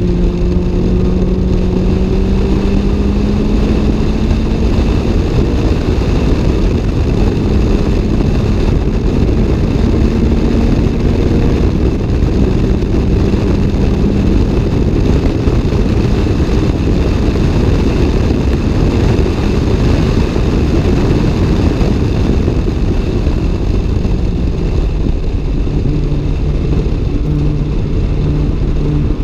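Toyota AE86 Levin's 4A-GE twin-cam four-cylinder engine pulling at high revs, heard from inside the cabin. Its pitch climbs slowly through the first half, then settles lower from about two-thirds of the way in.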